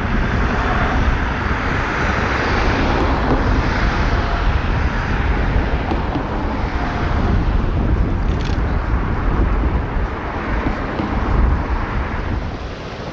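Boeing CH-47 Chinook tandem-rotor helicopter flying over, with a steady rapid thudding from its rotors under loud engine and air noise that swells and fades, dropping away near the end.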